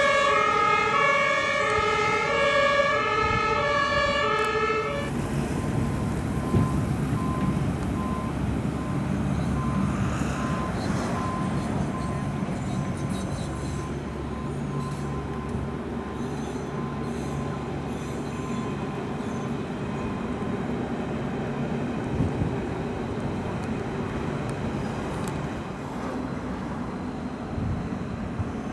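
A two-tone emergency-vehicle siren alternating between its two notes, which stops abruptly about five seconds in. After that comes the steady rumble of class 481 S-Bahn electric trains running across the railway viaduct.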